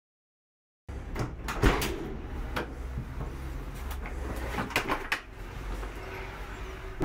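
Knocks and clunks of a plastic wet-and-dry vacuum canister being handled and moved out of the back of a van, several sharp knocks over a low rumble, the loudest about a second and a half in.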